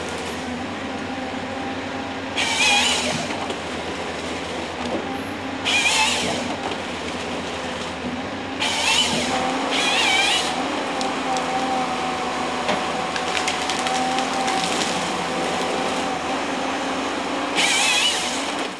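Timberjack 1270C forest harvester running steadily under load, with five short bursts of the harvester head's chain saw cutting through pine stems, each lasting about half a second to a second. A steady whine sits over the engine from about ten seconds in.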